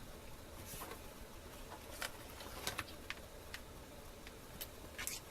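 Faint, scattered small clicks and light handling noise from oscilloscope probes being clipped onto a circuit board, a few ticks spread irregularly over several seconds.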